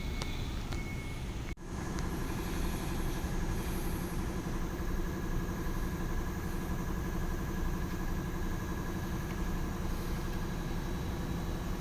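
Nissan Cube running steadily, a constant engine and drivetrain hum with a faint steady whine. A short beep sounds in the first second, and the sound cuts out for an instant about a second and a half in before resuming.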